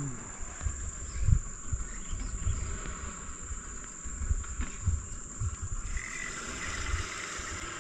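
Steady high-pitched drone of insects from the riverside vegetation, under irregular low thumps and bumps, the loudest about a second in.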